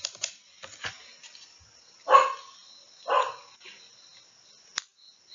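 Two short animal calls about a second apart, the first about two seconds in, with a few faint clicks around them.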